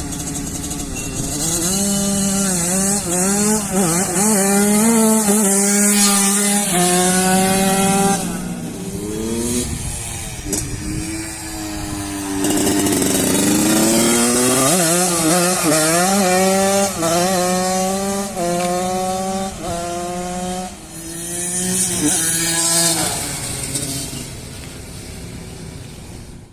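Yamaha V75 moped fitted with a Yamaha YZ85 two-stroke engine, accelerating hard and shifting up through the gears: each gear a rising pitch that drops at the shift. About eight seconds in it eases off, and from about twelve seconds it pulls through the gears again.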